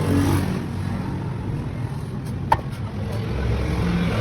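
A car running with a low, steady rumble, and one sharp click about two and a half seconds in.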